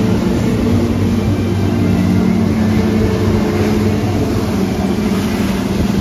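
Jet ski engine running steadily under load, pumping water up a hose to power a flyboard.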